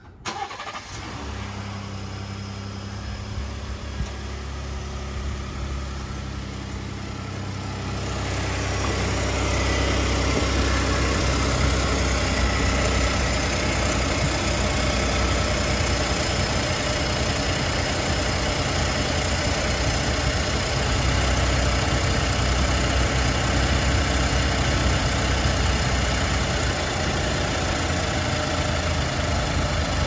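Ford 3.5L EcoBoost twin-turbo V6 of a 2020 F-150 cold-starting by remote start without a loud startup crunch, then idling. About eight seconds in it is heard up close at the front of the engine, louder. Under the idle is a rattle that the owner believes is cam phaser rattle.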